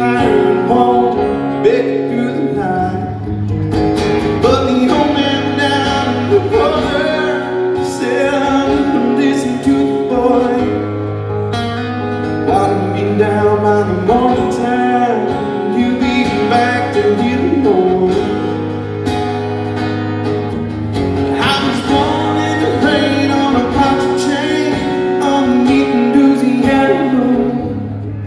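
Strummed acoustic guitar with a man singing, an acoustic country-style song.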